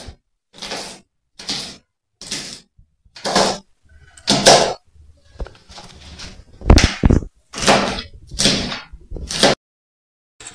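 Kitchen knife chopping tender nopal (prickly pear cactus pad) into small squares against a plate: a run of short cuts, about one every second, stopping near the end.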